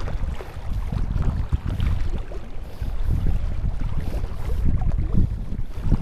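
Wind buffeting the microphone in low, uneven gusts, with small waves lapping against the rocks.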